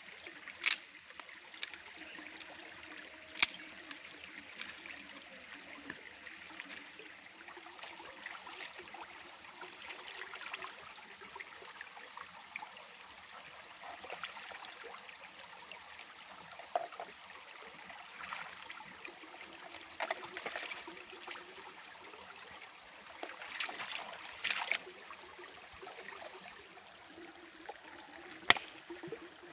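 Flowing river water trickling steadily, with sharp clicks or knocks now and then, the loudest a few seconds in and near the end.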